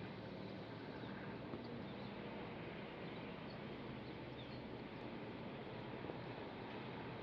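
Steady outdoor background noise, like distant traffic, with faint, high chirps now and then.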